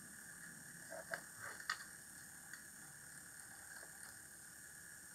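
A few faint clicks and ticks from the crystal chamber's small gear mechanism being turned by hand, clustered about a second in, over a faint steady high hum.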